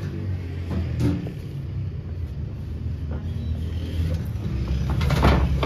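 Steady low rumble of the gas burner firing the clay bread oven, with a single knock about a second in and a brief louder clatter near the end.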